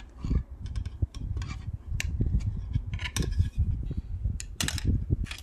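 Thin copper wire, about 1 mm thick, being twisted by hand around another wire: scattered small clicks, ticks and scrapes of wire rubbing and springing against wire, over a low rumble.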